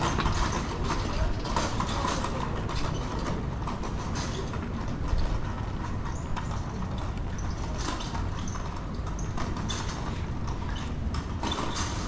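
Footsteps on a paved walkway, a light knock every second or so, over a steady low rumble of city background.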